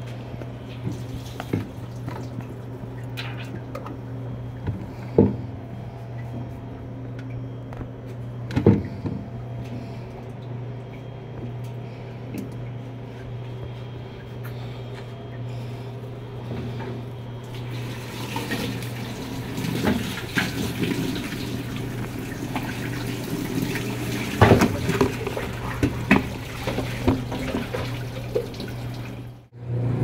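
Top-loading washing machine spinning out its load: a steady motor hum with water rushing as it drains. From about halfway, louder rustling and a few knocks come over the hum.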